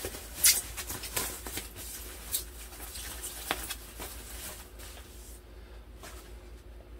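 Thin plastic protective bag crinkling and rustling as it is worked off a guitar body, in irregular crackles that die down after about five seconds.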